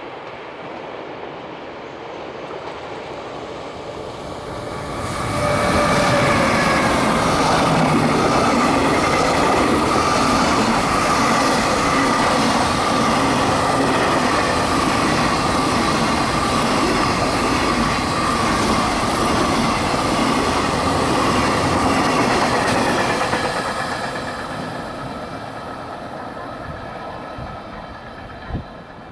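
An EF210 electric freight locomotive and its long train of container wagons passing through a station at speed. The locomotive's whine drops in pitch as it goes by about five seconds in, followed by a long, steady rumble and clatter of wagon wheels on the rails that fades away over the last few seconds.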